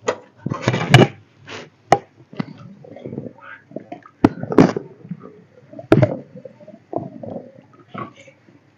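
A ladle stirring thick kidney-bean curry in a metal pan: irregular sharp knocks and scrapes of the ladle against the pan, with swishes of the stirred gravy in between.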